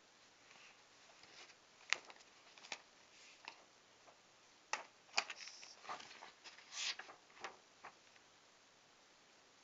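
Faint handling noise of a sheet of drawing paper: scattered light clicks and brief paper rustles, irregular, stopping about two seconds before the end.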